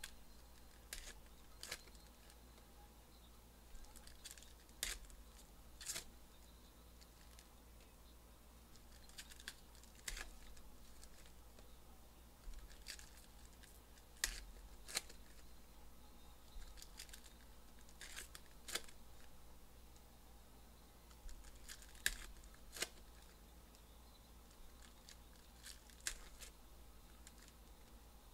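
Trading card packs being torn open and the cards handled: quiet, irregular crinkles of the pack wrappers and light snaps of cards, a few of them sharper than the rest.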